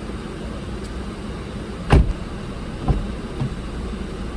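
A car door shutting with one sharp thud about two seconds in, followed by two fainter knocks, over the low steady rumble of an idling car.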